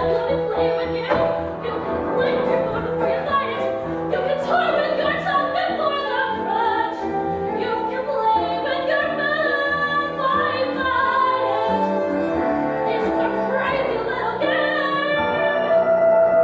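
Musical-theatre song: singing voices over instrumental accompaniment, with a note held steady near the end.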